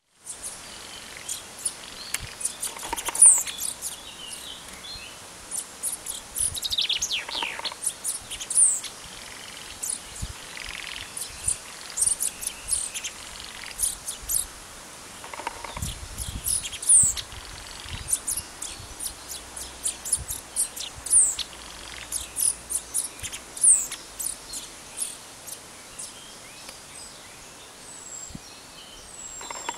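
Common chaffinches calling during courtship: repeated high, thin chirps and short falling whistles, with a longer descending call about seven seconds in.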